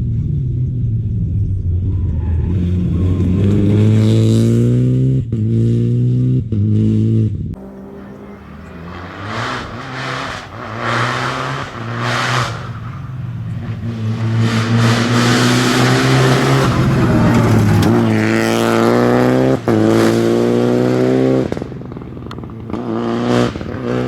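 Rally car engine revving hard and accelerating through the gears, its pitch climbing in repeated runs cut by quick gear changes. A stretch of rough, crackly engine and tyre noise in the middle, then another hard acceleration with upshifts near the end.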